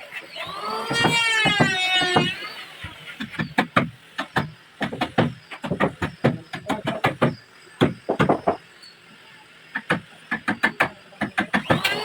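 A drawn-out call with a wavering pitch for about the first two seconds, then an irregular series of sharp knocks and taps, with a short pause near the end.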